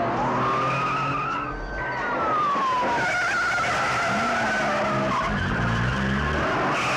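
Car tyres squealing in long, wavering skids over the sound of engines revving hard, one rising in pitch about four seconds in.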